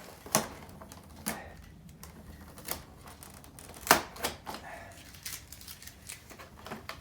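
Irregular sharp clicks and taps of small plastic model-train parts being handled, about a dozen light knocks with the loudest about four seconds in.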